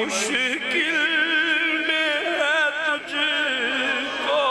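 A man singing a naat, an Urdu devotional song to the Prophet, unaccompanied in long held notes with a wavering, ornamented melody, with a short breath about three seconds in.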